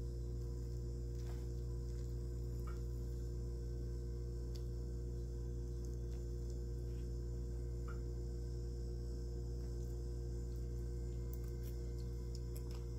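A steady low hum made of several held tones that never change, with a few faint, light clicks scattered through it.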